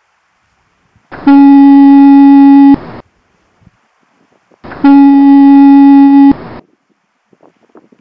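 Pier-head lighthouse foghorn sounding two loud blasts of one steady low note, each about a second and a half long, with a couple of seconds between them. It is the fog signal, sounding in dense fog.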